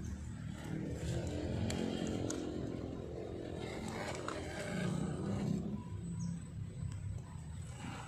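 MN99S 1:12 scale RC crawler's electric motor and gearbox whining as it crawls over rocks, the pitch rising and falling with the throttle, over a steady low rumble.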